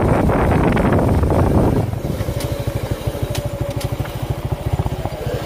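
Motorcycle engine running with a loud rush of noise, which drops about two seconds in to a steady, rapid putter at idle.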